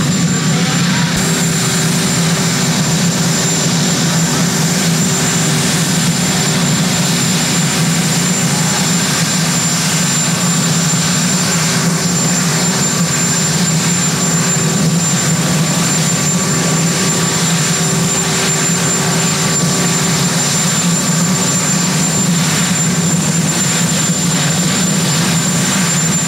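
Marine One, a Sikorsky VH-3D Sea King helicopter, running steadily on the ground: a loud, even rumble of turbines and rotor with a thin, steady high turbine whine over it.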